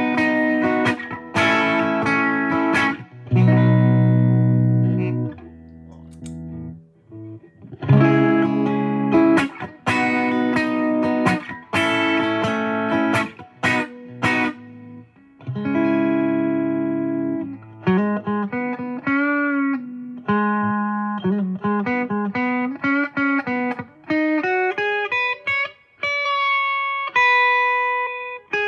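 Electric guitar played with the effect pedal switched off, a clean tone: sustained strummed chords, then a single-note melody with string bends and vibrato.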